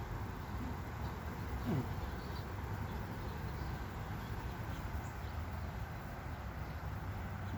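Honey bees buzzing around an open hive in a steady hum, with one bee flying close past, its buzz falling in pitch, a little under two seconds in.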